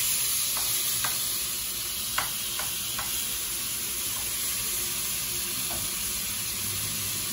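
Butter sizzling as it melts in a hot nonstick frying pan, stirred with a metal spoon that taps against the pan several times, mostly in the first three seconds.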